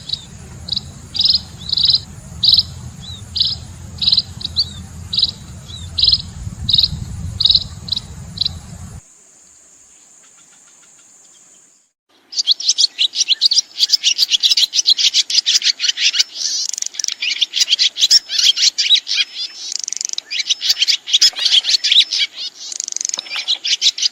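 Wild birds calling in two separate recordings. First, one bird repeats a short high call about once every two-thirds of a second over a steady high tone. After a brief quiet gap, a dense, fast chatter of high calls follows.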